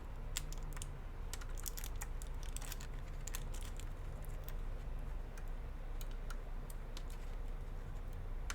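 Light, irregular plastic clicks and taps from hands working inside a laptop, reconnecting the ribbon cables of the power button and trackpad.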